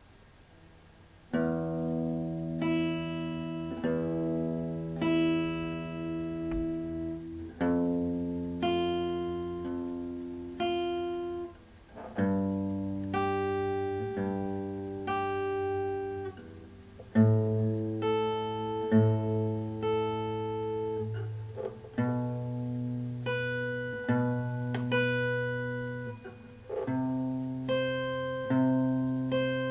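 Background music: a guitar strumming chords, a new strum roughly every second, each ringing and fading, with the chord changing every few seconds.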